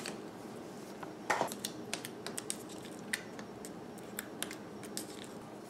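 A plastic lid is pried off a small plastic portion cup with a click about a second in. Then fingers poke the slime in the cup, giving faint, scattered sticky clicks and pops.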